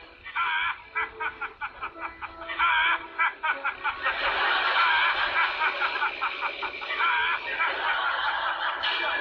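Laughter: a rapid run of ha-ha-ha pulses, growing into a denser, continuous spell of laughing from about four seconds in.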